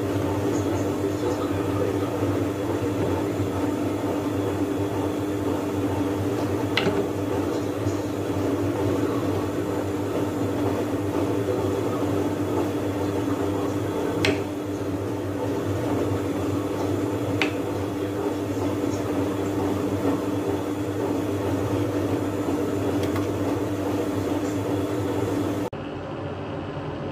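Steady mechanical hum of a kitchen appliance, with three sharp knife taps on a wooden cutting board as a bamboo shoot is sliced.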